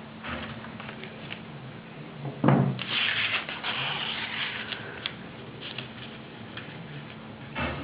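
A sheet of paper being handled and folded by hand. A thump about two and a half seconds in is followed by a couple of seconds of paper rustling and rubbing as a fold is pressed, with small crinkles and a faint steady hum underneath.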